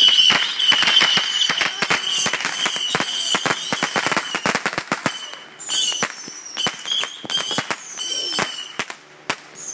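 Fireworks going off: a dense run of rapid crackling pops over a steady high whistle for about five seconds, then sparser cracks with short falling whistles.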